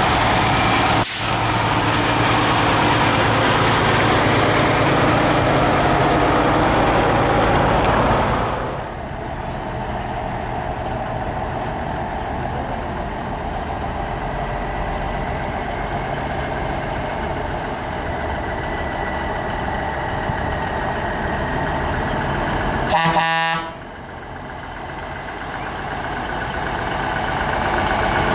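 Diesel engines of long-nose Peterbilt semi tractors running as the trucks roll slowly past. The first truck's engine is loud for the first eight seconds or so and then falls away, with a short air hiss about a second in. About two-thirds of the way through a horn toots once, briefly, and near the end the next truck's engine grows louder as it comes closer.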